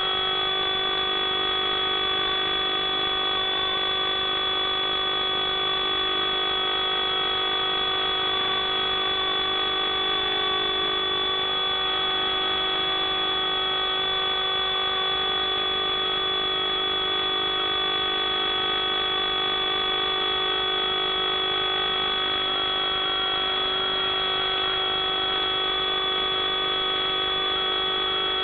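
FPV quadcopter's electric motors and propellers whining steadily, with a tone that wavers slightly in pitch as the throttle shifts.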